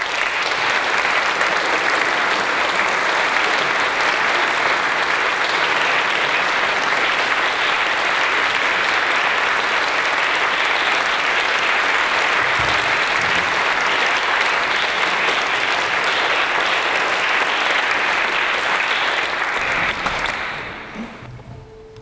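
Audience applauding: steady, dense clapping that dies away near the end.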